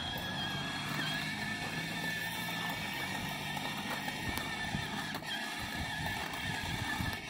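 Child's small Honda ride-on motorcycle with training wheels running along a sidewalk, its motor giving a steady whine over a low hum, with a few light clicks.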